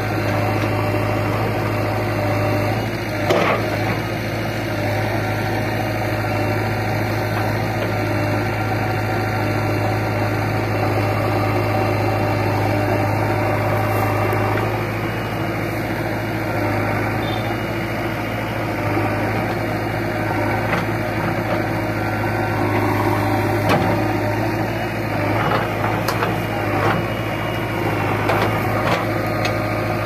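JCB 3DX backhoe loader's diesel engine running steadily while the backhoe arm digs, with a few short knocks and clatters, one about three seconds in and several near the end.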